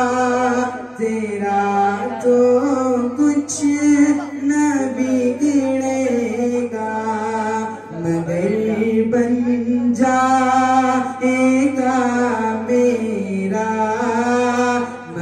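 A young man sings an Urdu devotional poem (a naat) into a microphone over a sound system, with long held notes that bend in pitch and no instruments. A steady low electrical hum from the sound system runs underneath.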